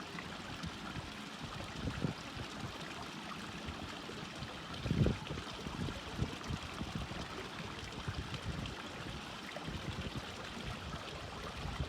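A stream running steadily, with a few brief low thumps about 2, 5 and 6 seconds in.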